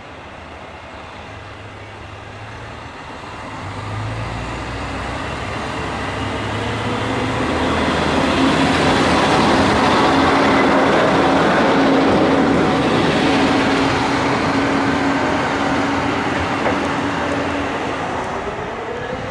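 Nishikigawa Railway NT3000 diesel railcar pulling away: the diesel engine throttles up about four seconds in. The engine and running gear grow louder as the railcar passes close by, with a steady drone, peaking around ten seconds and then fading.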